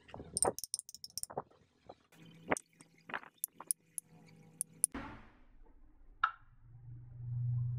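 A run of clicks, knocks and light metallic clinks, as from handling tools or small metal parts, then a low hum that swells up near the end.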